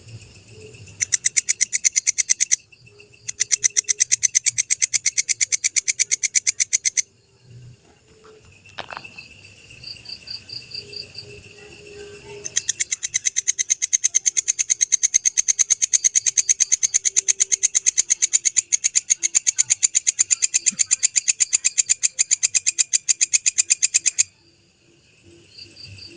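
Walang kecek (Indonesian katydid) calling: long trains of rapid, evenly spaced high-pitched pulses in three bouts, a short one, a longer one, and a long run of about twelve seconds near the end. Quieter ticking and a faint steady high tone fill the gaps between bouts.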